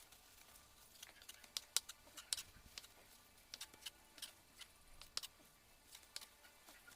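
Knife cutting boiled pork intestines on a chopping board: faint, irregular sharp clicks, a few per second.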